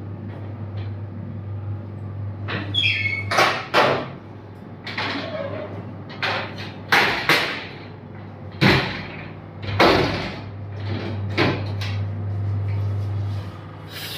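Steel almirah (metal wardrobe) door being handled: a series of sharp metallic clanks and scrapes as the sheet-metal door is opened and worked, over a steady low hum.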